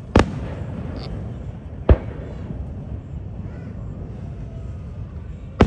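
Aerial firework shells bursting: three sharp booms, the first two close together and the third near the end, over a steady low rumble.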